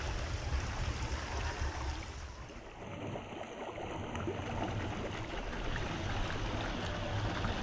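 Fast-flowing shallow stream rushing, with water splashing around the wheels of a Traxxas TRX-4 Sport RC crawler as it drives through. The sound dips briefly about three seconds in, then the rushing water carries on.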